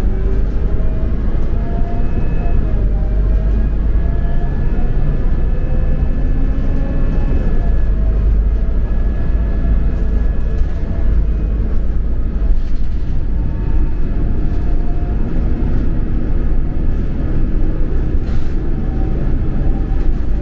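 City bus in motion heard from inside the cabin: a steady low rumble of engine and road noise, with a faint whine that rises and falls in pitch.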